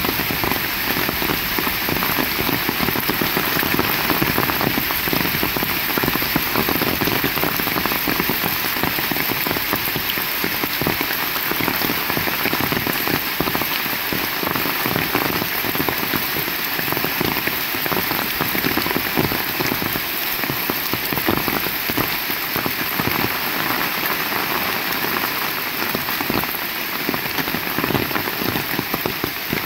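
Heavy rain falling steadily: a loud, dense patter of drops hitting surfaces.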